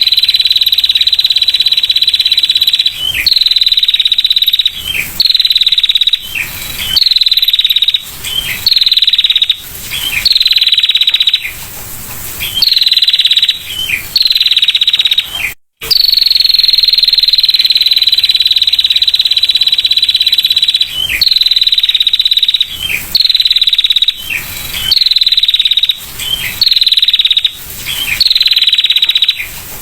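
Female prinia (prenjak) giving its 'ngetir' call: a fast, high, insect-like trill held for a second or more at a time and repeated over and over with short breaks, each phrase ending in a quick downward slur. It cuts out for an instant about halfway through.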